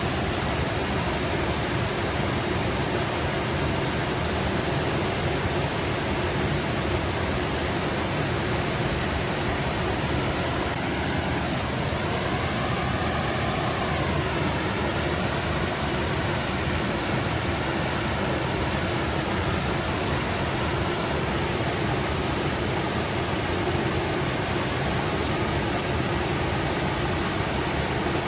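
Forest brook babbling, a steady rush of flowing water. About halfway through, a faint tone rises and falls over a few seconds beneath the water.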